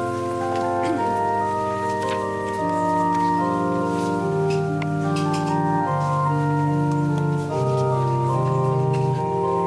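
Organ playing a slow hymn tune in held chords, the notes changing every second or so.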